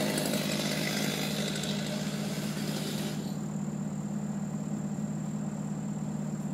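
An engine running steadily at idle with a low, even hum; a hiss over it cuts off about three seconds in.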